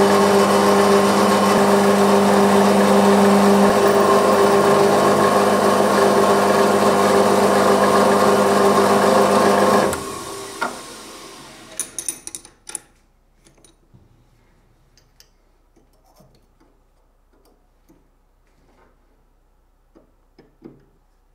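Small Emco metal lathe running under cut, turning and drilling a small metal part: a steady machine whine with several tones that stops abruptly about ten seconds in. After it come scattered light metallic clicks and handling sounds of hand work, including turning a tap in a tap wrench.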